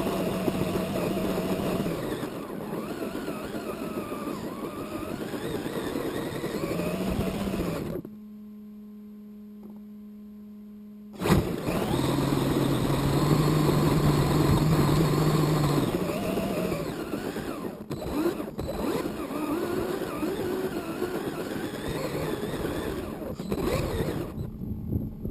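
A 1:10 scale RC car's motor and drivetrain whining close to the onboard camera as it drives over grass, with a pitch that rises and falls with the throttle over tyre and rattle noise. About eight seconds in, the sound drops to a low steady hum for about three seconds, then comes back with a sharp click.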